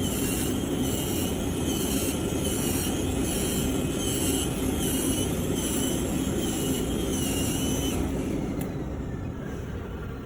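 Digital cutting machine running: a steady mechanical noise with a wavering high whine over it that drops away about eight seconds in.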